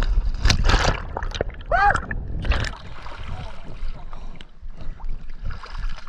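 Shallow seawater splashing and sloshing around a camera held at the water's surface, with a few strong splashes and a gurgle in the first three seconds, then lighter lapping.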